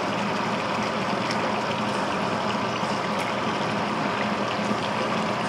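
Pot of salted fish with onions and peppers simmering in its own juices and oil: a steady bubbling sizzle with a few small pops, over a faint low hum.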